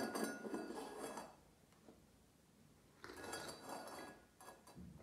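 Stainless steel dog bowl scraping and clinking on a wooden floor, with a light metallic ring, as a puppy shoves it about with nose and paw. It comes in two bouts, about a second and a half at the start, then again from about three seconds in.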